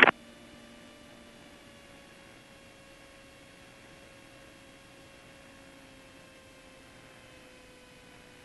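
Faint steady in-flight drone of a Cessna 172 heard through the cockpit intercom audio feed: a low hiss with a few steady humming tones that dip slightly in pitch about two seconds in.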